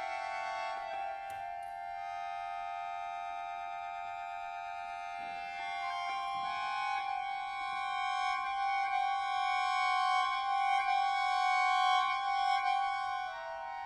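Accordion holding sustained high chords, the notes shifting slowly and swelling louder in the second half before falling back near the end.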